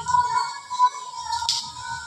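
Background music: a melody over a choppy bass line, with a brief sharp hit about one and a half seconds in.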